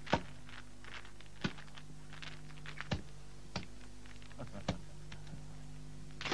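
Mahjong tiles clacking as they are played onto the table: about six or seven separate sharp clicks, spaced roughly a second apart and the first the loudest, over a faint steady hum.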